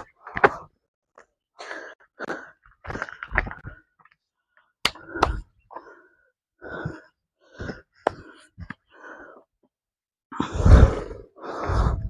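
A man breathing hard and unevenly while climbing a steep rocky slope, in short separate gasps and puffs, with a few sharp knocks or scrapes. The loudest breaths come about ten seconds in.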